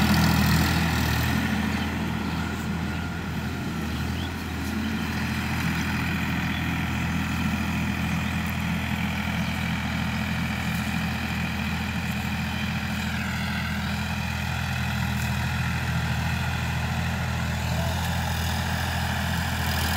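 Sonalika DI-50 RX tractor's diesel engine running steadily under load while working a rear-mounted rotary tiller through soil. The sound dips slightly a few seconds in, then holds an even drone.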